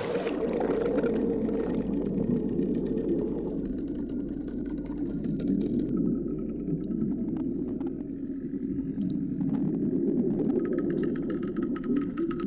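Muffled underwater water noise picked up by a camera plunged into shallow seawater, with a steady low hum and a few faint ticks; the high sounds drop out as it goes under.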